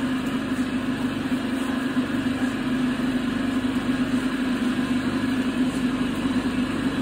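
A machine running steadily: a continuous low drone with an even hum that does not change.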